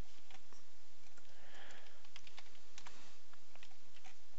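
Irregular light clicks of a computer keyboard and mouse being worked, over a steady low hum.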